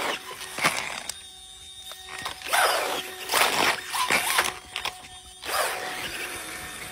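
Remote-control toy mini dirt bike's small electric motor whining in repeated bursts as it accelerates, wheelies and slides, with its tyres scrubbing on gritty asphalt.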